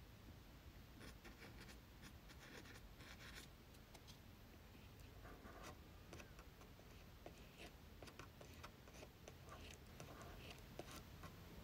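Near silence, with several short stretches of faint, soft scratching.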